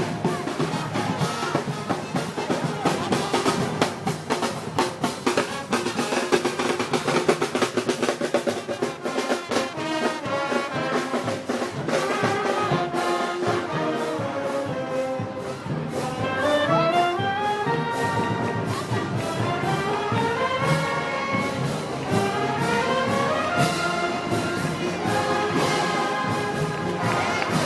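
A festival brass band playing a march: trumpets and trombones carry the melody over drums keeping a regular beat. About halfway through, the brass climbs in rising runs of notes.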